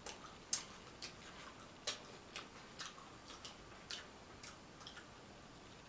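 Close-miked chewing of crispy fried clam strips, a string of sharp crunches about twice a second.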